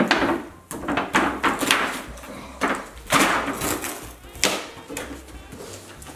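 A cardboard toy box and its packaging being pulled open by hand, rustling and scraping in a string of short, irregular tears and crinkles.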